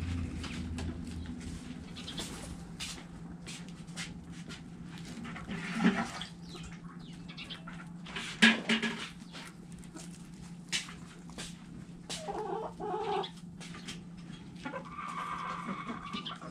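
Backyard chickens clucking in a coop, with short calls about twelve seconds in and a longer drawn-out call near the end. Scattered sharp taps run throughout, with two louder knocks about six seconds in and again two and a half seconds later, over a steady low hum.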